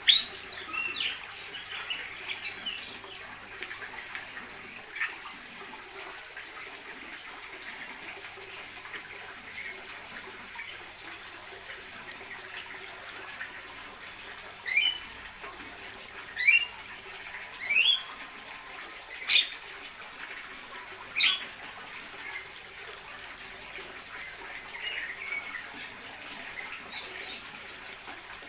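Aviary birds chirping, with a cluster of quick chirps at the start and five loud, sharp calls spaced a second or two apart in the middle, over a steady background hiss.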